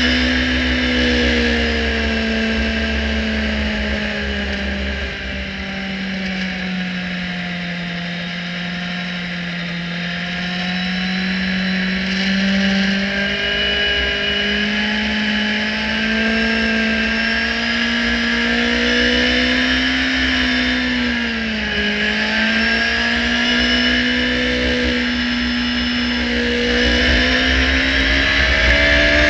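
Radical SR3-RSX racing car's engine running hard under load, heard from the open cockpit. The pitch sags and climbs, with a sharp dip in revs about three-quarters of the way through before it pulls up again. A steady rush of wind and spray noise from the wet track lies under the engine.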